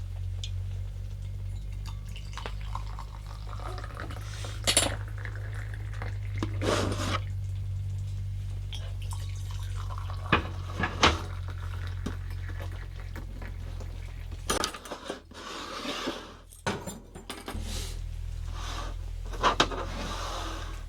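Cutlery and dishes clinking and scraping, in a few sharp knocks, as food is served from the pan. A steady low hum runs underneath, stopping for a few seconds about two-thirds of the way in.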